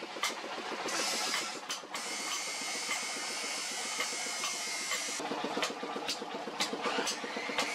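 Forge air blower running steadily with a rushing hiss, with a few short sharp metallic clicks scattered through as the hot blade is handled on the anvil.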